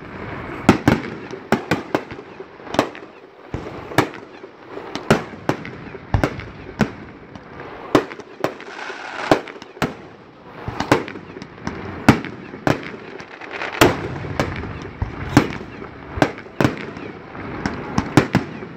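Aerial fireworks display: shells bursting one after another, about two sharp bangs a second at uneven spacing, with a noisy haze between the bangs.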